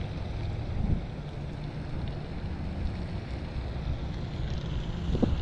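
Wind buffeting the microphone, a steady low rumble, with two brief knocks about a second in and near the end.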